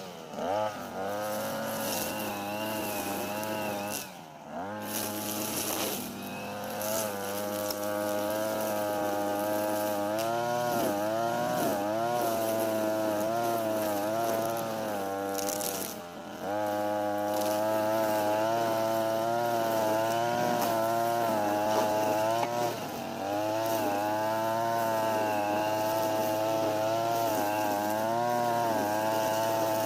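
Brush cutter's 43 cc two-stroke engine running at high revs, its speed rising and falling as it works. The throttle eases off briefly twice, about four and sixteen seconds in.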